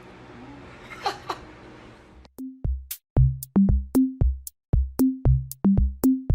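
Quiet room noise with a brief double squeak about a second in, then electronic background music with a punchy drum-machine beat and short pitched bass notes, about two beats a second, starting a little over two seconds in.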